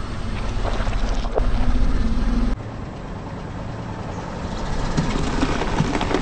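Car engine rumbling low as a tyre rolls slowly over sliced bell peppers on asphalt. After a sudden cut, a tyre rolls onto a whole bell pepper and crushes it with short crackling snaps near the end.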